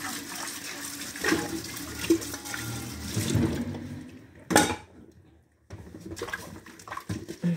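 Kitchen tap running into a sink during dishwashing, with dishes knocking. The water stops a little past halfway, then one loud clatter of dishware, followed by a few lighter clinks.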